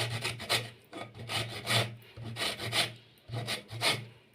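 Lemon being grated on a hand grater to take off the zest: short rasping strokes over the peel, about two to three a second, in small groups with brief pauses.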